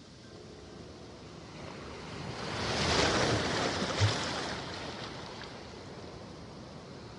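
A sea wave breaking and washing in: a rush of surf that swells to a peak about three seconds in and then fades. A short low thump comes about four seconds in.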